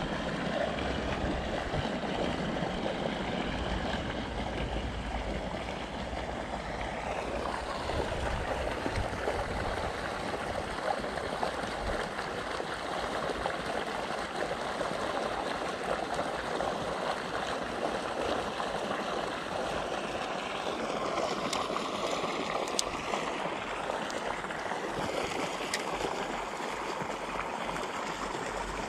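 Steady rushing of water, like a pipe pouring a jet into a pond, with a few faint clicks about two-thirds of the way through.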